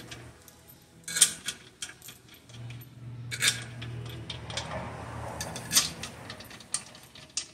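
Metal parts and tools clinking and knocking as a transmission is put back together, with a few sharp knocks about one, three and a half and six seconds in over lighter clatter. A faint low hum runs through the middle.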